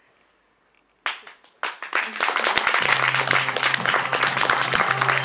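Near silence, then about a second in a few scattered first claps, after which an audience breaks into steady applause.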